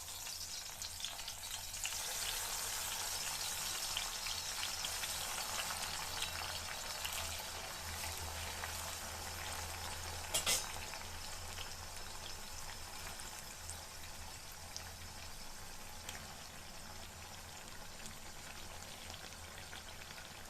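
Brinjal (eggplant) pieces frying in hot oil: a steady sizzle full of small crackles, easing a little toward the end, with one sharp click about ten seconds in.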